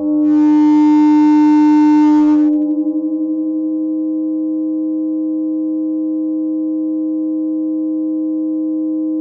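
Electronic drone of steady sine-wave tones. For the first two and a half seconds a brighter, buzzier layer with a low bass tone sounds over it, then drops away with a brief wavering, leaving a steady held chord.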